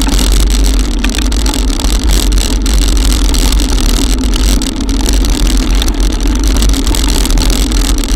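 Loud, steady rumble and hiss of riding through a cloudburst, heard on a GoPro mounted on an e-bike: wind buffeting the microphone, rain and wet-road noise, with a steady low hum underneath and scattered ticks of drops striking the housing.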